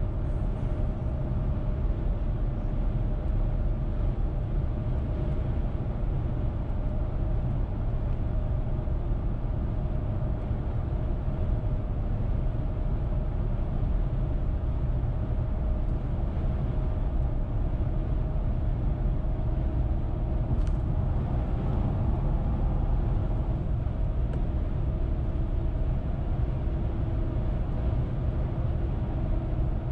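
Steady road noise of a car driving at highway speed: a constant low rumble of tyres and engine, with a faint steady hum over it and one brief tick about twenty seconds in.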